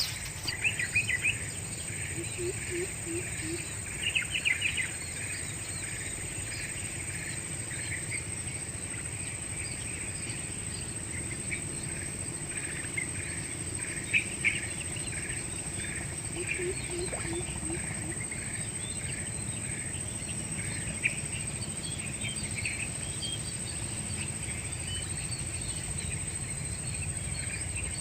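Wetland ambience: insects holding a steady high-pitched drone while birds give short chirping calls on and off, a few of them louder near the start and around four and fourteen seconds in.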